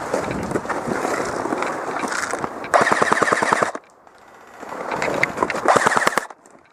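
Airsoft electric gun firing on full auto: a rapid, evenly spaced burst about a second long near the middle, then a second shorter burst near the end.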